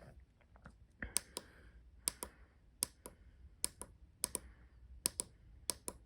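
A small push button pressed repeatedly, about seven times: each press gives a pair of sharp clicks, one going down and one coming back up, starting about a second in. Each press toggles a single-button latch circuit on or off.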